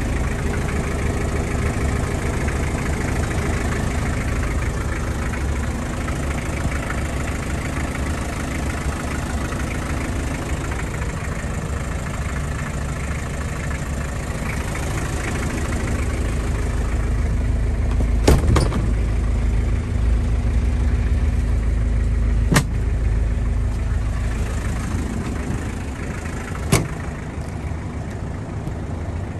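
Mazda Bongo truck's 2.2-litre R2 four-cylinder diesel idling steadily. Three sharp clicks come a few seconds apart in the second half.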